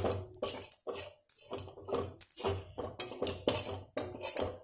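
Spatula stirring and scraping grated coconut, peanuts and onion frying in a kadai, in quick strokes about twice a second. The coconut is being only lightly fried, just until it is hot.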